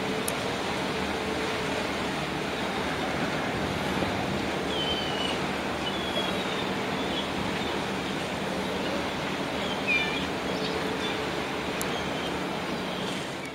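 Steady, even rush of wind and distant boat traffic over open water, with a faint low hum underneath and a few faint, short high chirps scattered through.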